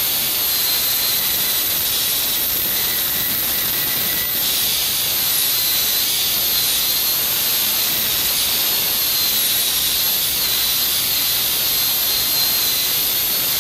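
High-speed air-turbine dental handpiece with a diamond bur running in a steady high-pitched whine over a hiss, its pitch wavering slightly as it grinds the occlusal surface of a plastic typodont molar during the occlusal reduction for a crown preparation.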